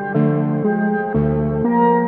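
Modular synthesizer playing a Christmas carol arrangement: a filtered synth bass stepping to a new note about every half second under sustained pad chords and bell-like tones.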